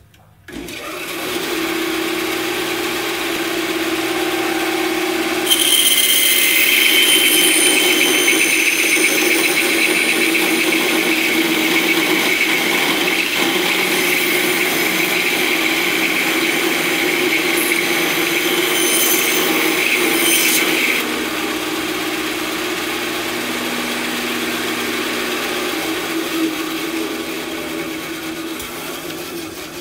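Beaver 3300 bandsaw with a 1.5 hp motor and a 3-tooth-per-inch blade. It starts about half a second in and runs with a steady hum. From about five seconds in to about 21 seconds the blade rips through 2-inch-thick red oak, adding a loud, gritty, hissing rasp over the motor. After that it runs free and fades near the end.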